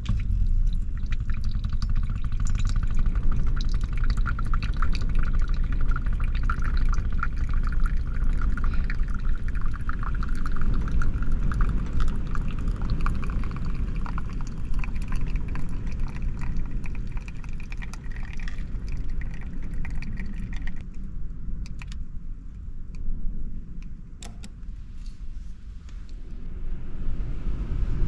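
Espresso trickling and dripping from a Flair NEO manual lever press into a small glass shot cup, a fine stream whose pitch creeps upward as the cup fills. It stops about three quarters of the way through, leaving a few clicks. A steady low rumble runs underneath.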